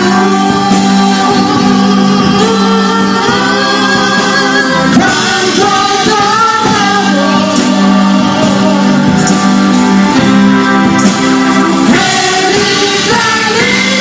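Live band music: singing through microphones over amplified instruments, playing continuously.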